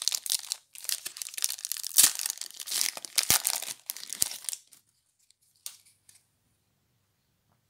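Foil wrapper of a Magic: The Gathering booster pack being torn open and crinkled by hand: dense crackling for about four and a half seconds. After that come only a few faint ticks as the cards are handled.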